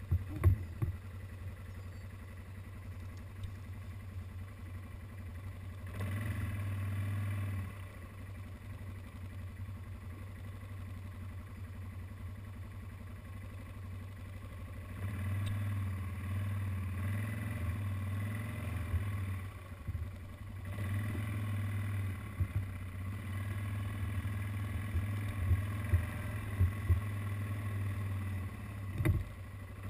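ATV (quad bike) engine running as it is ridden slowly across a field: a steady low hum that rises briefly about six seconds in and again from about halfway, as the throttle opens. A few short knocks come near the end.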